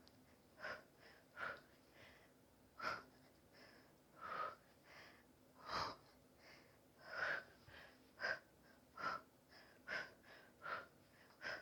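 A woman breathing hard under exertion, with short, sharp breaths roughly once a second, some stronger than others, during side plank hip dips.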